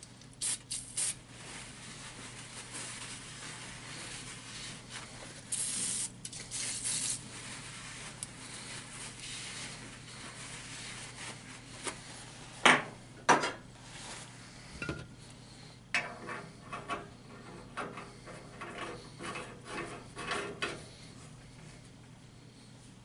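A rag wiping and rubbing over freshly cut threads on a steel pipe end: short scraping rubs, two sharp knocks around the middle, then a run of quick scratchy strokes.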